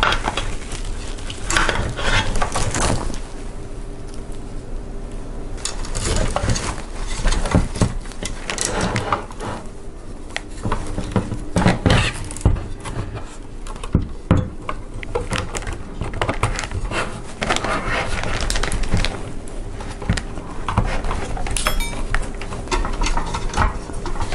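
Cables and connectors being handled and pushed into a small metal PC case: irregular clicks, taps and rustling.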